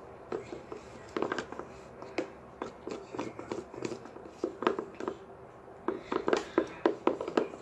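A plastic spoon stirring slime in a plastic tub: irregular small clicks, taps and sticky pops in clusters, thickest in the last couple of seconds.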